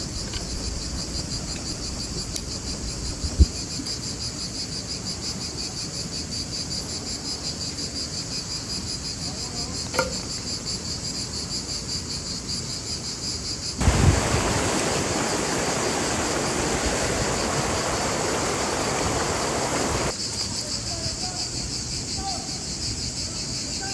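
Crickets chirping in a steady, rapidly pulsing high trill. A sharp knock sounds about three seconds in, and from about fourteen seconds a rushing noise sets in for about six seconds, then stops suddenly.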